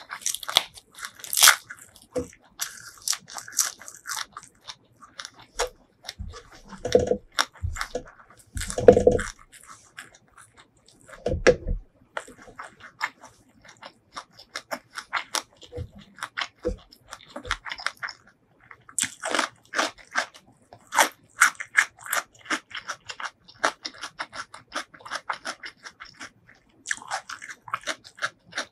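A person chewing a mouthful of food close to the microphone, with crisp crunching and wet mouth clicks throughout. There are a few louder low thumps in the first half.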